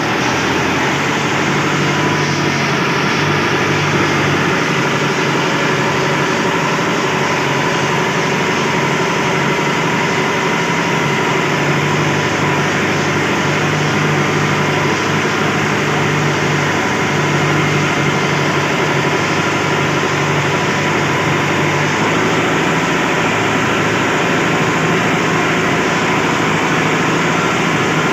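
Sawmill machinery running steadily: a loud, continuous mechanical drone with a constant hum under a dense hiss.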